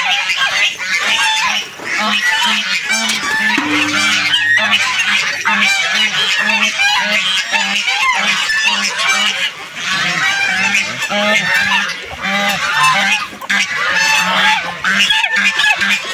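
A farmyard flock calling: geese honking among chickens, many loud, overlapping calls with no break.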